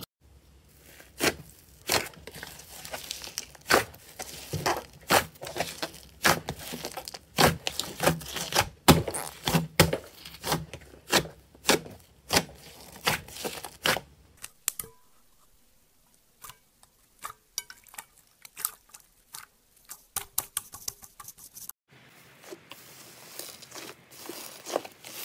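Hands squeezing and poking thick slime, making irregular sticky crackles and pops as trapped air bursts. It goes quiet with only scattered pops past the middle, then a denser fizzing crackle near the end as foamy slime is kneaded and its bubbles pop.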